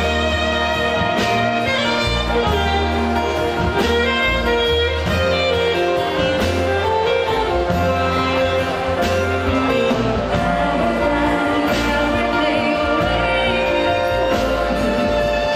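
A small live band playing: saxophone, double bass, acoustic guitar and keyboard. The two singers come in near the end.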